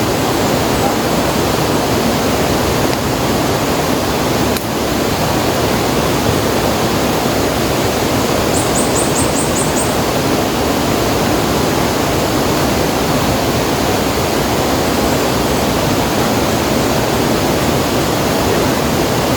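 Steady rushing of river water, loud and even. About halfway through comes a brief run of about six high chirps.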